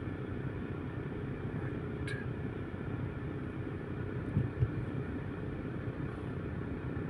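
Steady low rumble of cars in slow city traffic, with two brief thumps a little past the middle.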